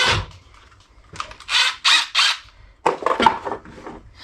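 Hand-tool work on wood: a handful of short rasping, clattering strokes as a wooden holder is fastened together.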